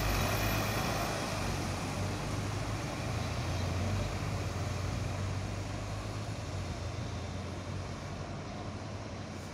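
Road traffic: vehicle engines droning steadily and slowly fading as a double-decker bus and minibuses drive away.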